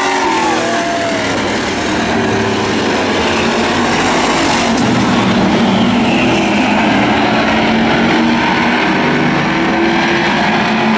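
Engines of several demolition race cars and trucks running hard around an oval track, a loud, steady mix of engine noise. A brief tyre squeal comes right at the start.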